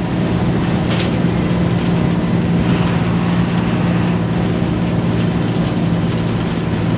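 A bus engine running with a steady low drone, heard from inside the cabin, with road noise under it.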